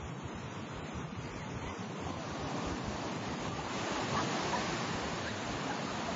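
Pacific Ocean surf breaking and washing up the beach: a steady rush of water that grows louder a little past halfway through as a wave breaks.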